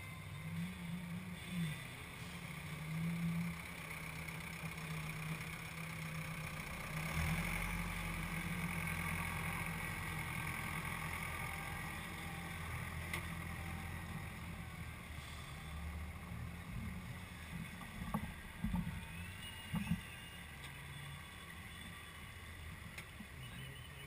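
Diesel farm tractors running at low revs as they manoeuvre in mud, louder in the middle as one drives close by, with a few sharp knocks about three quarters of the way through.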